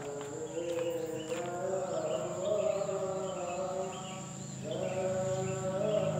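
A voice chanting in long, wavering held notes, dipping briefly about two-thirds of the way through before carrying on.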